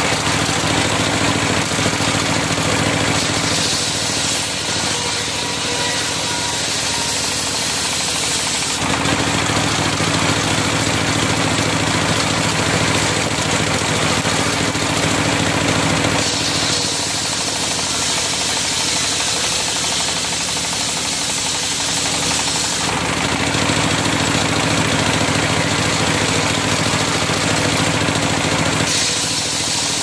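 Engine-driven circular sawmill blade ripping a log into boards. The drive engine runs steadily underneath, and a bright high hiss from the blade swells and eases in three long stretches.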